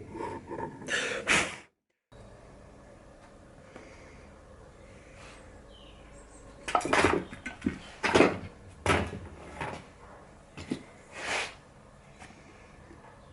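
Wooden knocks and clatter of workpieces being handled on a workbench: a few near the start, then about half a dozen separate sharp knocks in the second half, over a faint steady hum.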